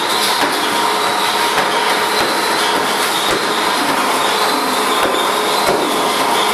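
Equine walking treadmill running steadily: an even mechanical rush from the motor and moving belt, with a faint high whine.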